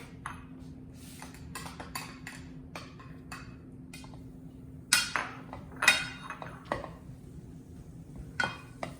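Kitchen clatter: dishes and utensils clinking against a pan, with light clicks throughout and a few louder knocks about five, six and eight and a half seconds in.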